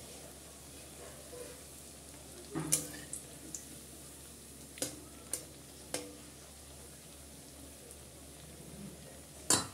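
Green-leaf fritters sizzling steadily in hot oil in a steel kadai. A spatula knocks and scrapes against the pan about seven times, loudest about two and a half seconds in and just before the end.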